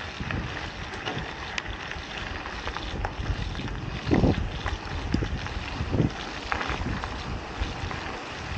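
Mountain bike riding along a dirt fire road: a steady rush of wind on the action camera's microphone and rolling tyre noise, with a few low thumps and rattles over bumps, the loudest about four seconds in and another about six seconds in.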